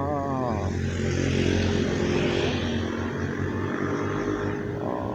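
Motorcycle traffic passing on the road: engine drone and tyre noise swell to a peak about two seconds in, then fade.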